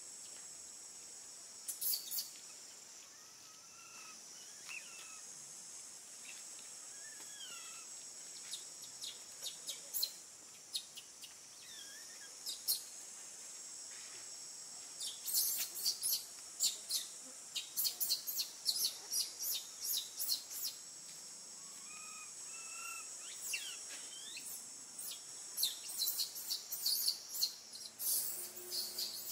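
Outdoor tree ambience: a steady high insect drone, with bursts of short, sharp high chirps and clicks, thickest in the second half. A few brief whistled calls sweep down and up in pitch.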